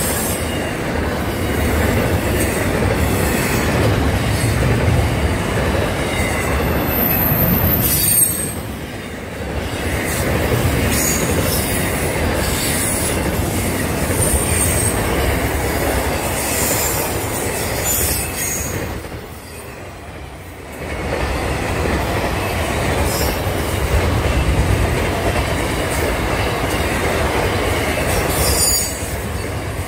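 Long freight train of double-stacked container wagons and boxcars rolling past, with a steady rumble and clatter of steel wheels on the rails. Brief high-pitched wheel squeals come a few times. The sound dips briefly about 9 and 20 seconds in.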